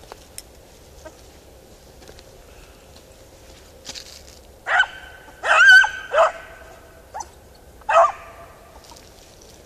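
Beagle harrier barking: a string of about five pitched barks starting about five seconds in, the second one drawn out and the loudest, the last one near eight seconds.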